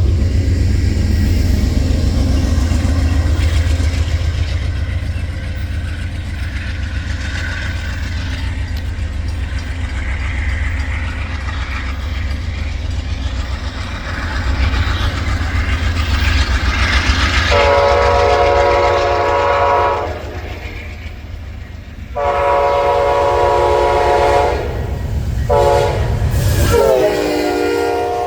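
A diesel train runs with a steady low rumble. Its multi-tone horn then sounds long, long, short, long, the standard grade-crossing signal.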